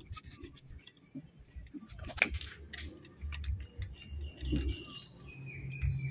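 Scattered light clicks and taps as latex speargun rubbers and their metal wire wishbone are handled against the barrel, the sharpest about two seconds in, over a low rumble of handling noise that grows in the second half.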